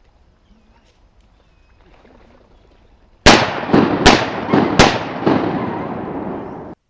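A volley of shotgun shots from several hunters firing at ducks, about six blasts in two seconds, three of them loudest, each echoing and trailing off, cut off suddenly near the end.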